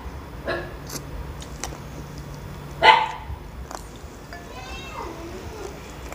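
Calls of a domestic animal: a short call about half a second in, a louder one about three seconds in, then a drawn-out wavering call near the five-second mark.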